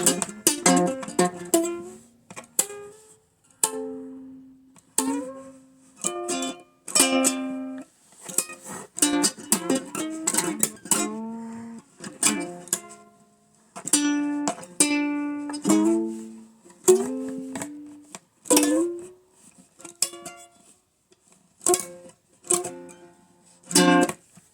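Ukulele played solo in an old-time style, a tune of picked notes and strums with a few final strums near the end before the playing stops.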